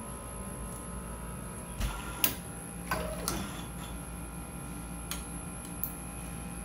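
Steady hum of bench machinery with a few sharp clicks and taps, a cluster about two to three seconds in and a couple more near five seconds, as a small part is handled and set down on an aluminium fixture plate.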